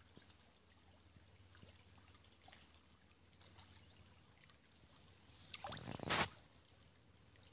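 Shallow water at a reedy shore, faint and quiet with scattered small clicks, then a short, louder splash in the water about six seconds in.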